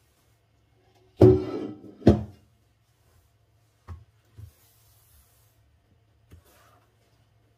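Large stainless steel stockpot set down on a kitchen benchtop: two loud ringing metal clanks about a second apart, followed by a few light knocks.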